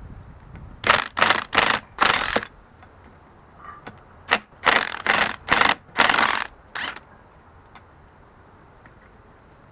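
Ratchet wrench clicking in short bursts as bolts on the rear output housing of a Land Rover LT230 transfer case are backed out: four quick strokes, a pause of about two seconds, then five more.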